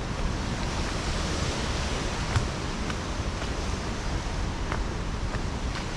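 Steady rushing of wind and ocean surf, with a few faint taps.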